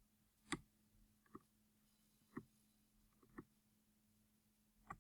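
Near silence: room tone with a faint steady hum and about five faint, short clicks spread irregularly through it.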